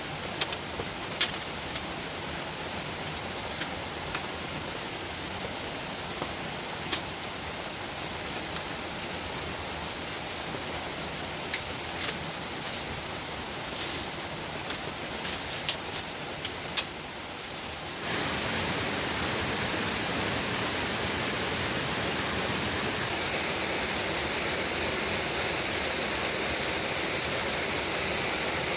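Steady background hiss with a thin, high steady tone and scattered sharp knocks. About two-thirds of the way through it cuts abruptly to a louder, even rushing noise.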